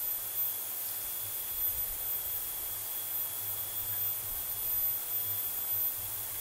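Steady background hiss with a faint constant high whine, and no distinct sound events.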